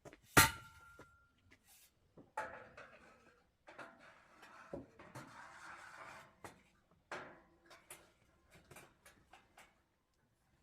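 A sharp knock with a brief metallic ring about half a second in, then scattered clicks, clatter and rustling of objects being handled.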